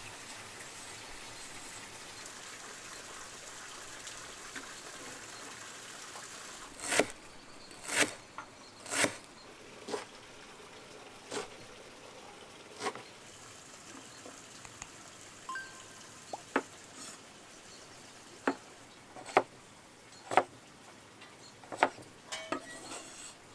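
Large kitchen knife chopping vegetables on a wooden cutting board: single sharp knocks of the blade hitting the board, about one a second and unevenly spaced, beginning some seven seconds in, over a steady faint hiss.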